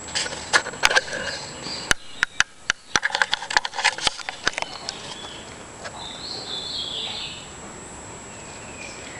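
A quick run of sharp clicks and knocks, then a short high-pitched kitten mew.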